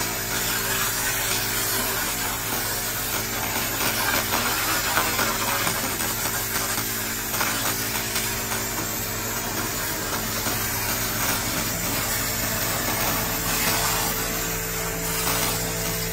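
Handheld continuous fiber laser cleaner ablating rust and grime from a 1958 Cadillac 365 cast-iron engine block: a steady fizzing hiss over a steady machine hum.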